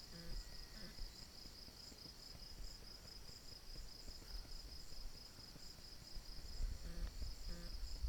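Crickets chirping in a faint, steady, evenly pulsed high chorus, over a low rumble that swells near the end.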